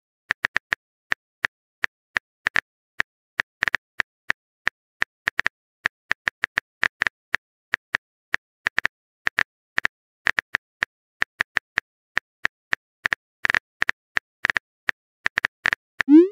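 Typing sound effect of a phone keyboard: a run of quick, irregular light taps, a few a second. Right at the end a short loud rising swoop starts, the beginning of a message alert tone.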